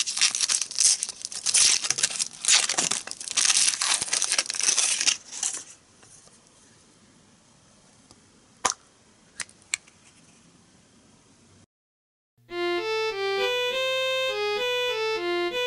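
Foil wrapper crinkling and tearing as it is peeled off a Choco Egg, for about six seconds. Later comes one sharp crack and two small snaps as the chocolate shell is broken. About twelve seconds in, a short electronic jingle of bright, clearly pitched notes starts.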